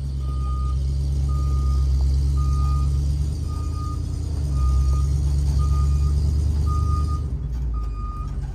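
Kubota mini excavator's diesel engine running under work, with its travel/backup alarm giving a short high beep about once a second.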